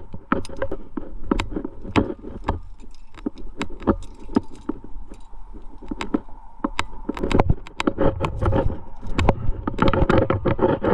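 Metal climbing gear (carabiners and cams racked on a harness) clinking and jangling in quick, irregular clicks as the climber moves, over a low rumble of wind on the microphone.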